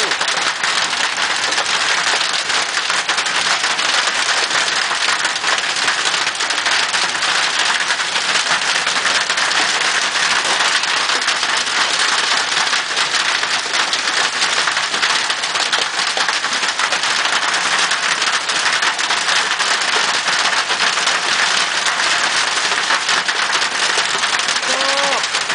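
Monsoon hailstorm: hail and heavy rain pelting down without let-up, a dense, steady hiss made of countless small impacts.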